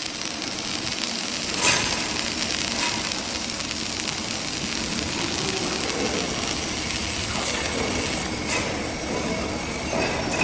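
TIG welding arc running, a steady hiss with slight crackle.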